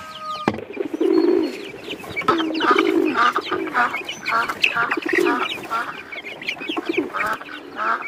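Poultry calling over and over, a quick run of clucks and squawks with short higher chirps among them.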